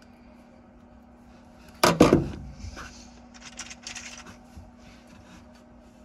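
Hand crimping pliers clacking loudly once about two seconds in as a red T-tap connector is crimped onto a thin wire, followed by a couple of seconds of light clicks and rustling.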